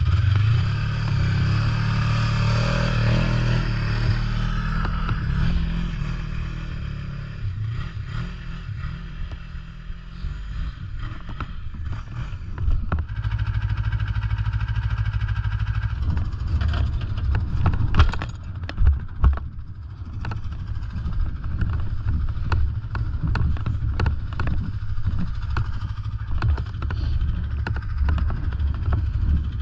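Snowmobile engine running, working harder in the first few seconds and then running steadily at low speed, with a cluster of sharp knocks and clatter just past the middle.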